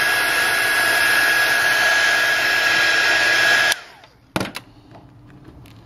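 Heat gun blowing steadily with a high, steady whine, used to soften the screen adhesive; it cuts off suddenly about three and a half seconds in. A single sharp knock follows about half a second later.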